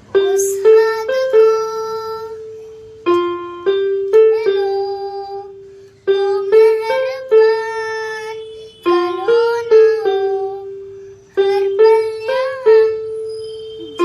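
Electronic keyboard playing a simple one-line melody in short phrases: a few quick notes, then a held note that fades away, a new phrase starting about every three seconds. A few notes bend slightly in pitch near the middle and toward the end.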